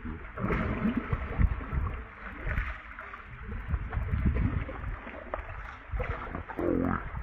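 Water splashing and gurgling over an uneven low rumble.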